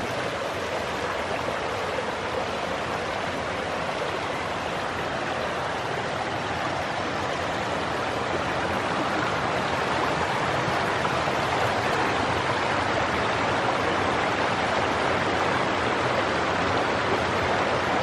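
Small mountain waterfall and stream rushing steadily, growing a little louder about halfway through.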